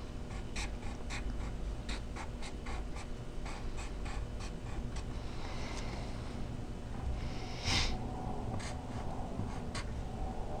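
Wooden graphite pencil scratching on drawing paper in quick short strokes, with brief pauses, as small zigzag details are drawn. About three-quarters of the way through there is a louder, brief rustle of paper.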